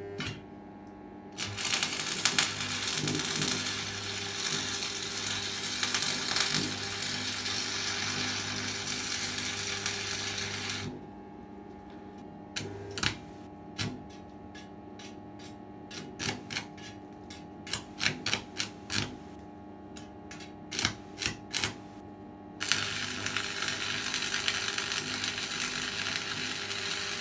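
Stick (arc) welding on steel: the electrode's arc crackles and hisses steadily for about nine seconds, then gives only short separate cracks and clicks for about eleven seconds while the rod sparks and restrikes, then settles into the steady crackle again near the end.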